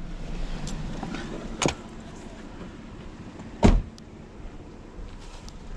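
Two knocks over a low steady background: a lighter one at about a second and a half, then a louder, heavier thud a couple of seconds later.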